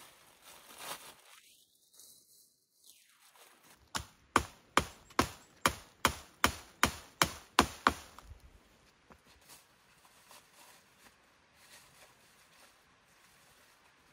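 Hatchet chopping through a conifer branch: about a dozen sharp blows, roughly three a second, over some four seconds, with faint rustling of evergreen boughs before and after.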